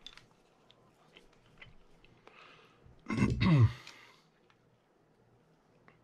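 Faint light clicks and taps of a small metal pick and plastic reel parts being handled. About three seconds in comes a short, loud, throaty grunt from the man, dropping in pitch and lasting under a second.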